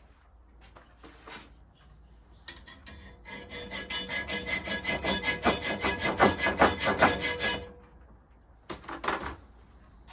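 Fast, even metallic rattling scrape with a ringing tone, lasting about five seconds and then a short second burst: metal rubbing along a rusty steel rod.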